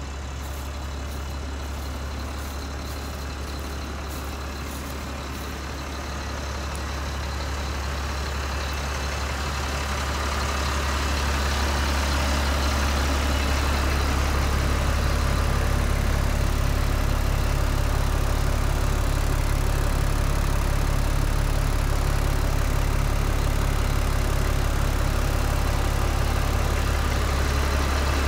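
A 2004 Chevrolet C6500 medium-duty truck's engine idling steadily with a deep hum, growing louder from about six to twelve seconds in, then holding level.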